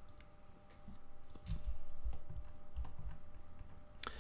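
Computer desk sounds: faint clicks and a few low thumps, then one sharp mouse click near the end.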